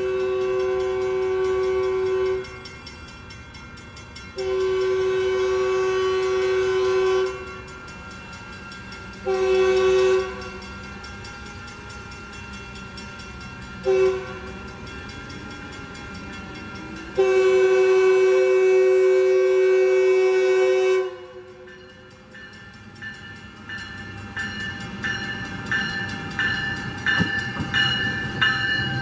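Metrolink diesel locomotive's multi-chime air horn sounding as the train approaches: two long blasts, a short blast, a quick toot, then a final long blast, close to the long-long-short-long grade-crossing signal. After the horn the train's rumble and wheel-on-rail noise grow louder as it pulls into the station, with wheel and brake squeal building near the end.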